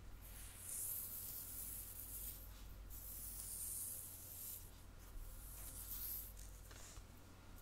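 Soft ASMR scratching and rubbing: a few long, hissy sweeps, each lasting about a second or more.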